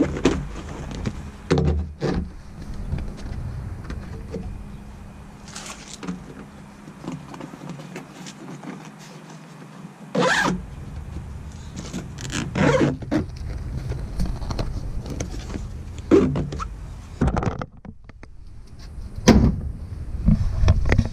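Handling noise at the back of a Jeep Wrangler TJ: a string of irregular knocks, clicks and rustles as the fabric soft top and its clear vinyl rear window are lifted and moved, over a low rumble that comes and goes.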